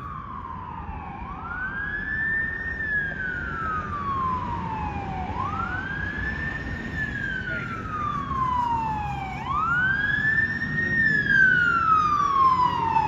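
Fire engine siren wailing. Each cycle climbs quickly and falls slowly, repeating about every four seconds, and it grows louder as the truck approaches, over a low rumble.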